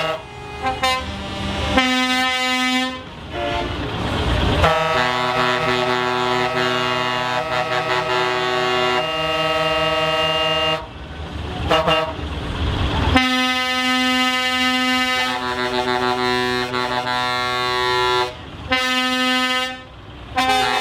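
Truck air horns blasting: several tones sound together as a chord, in repeated held blasts, the longest about six seconds, with short breaks between them.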